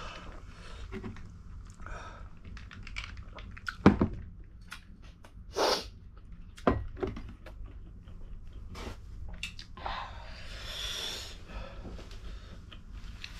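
Eating sounds from a spicy noodle meal: chewing and small clicks of utensils. There is a single knock about four seconds in, and two hissing sounds, a short one near six seconds and a longer one about ten seconds in.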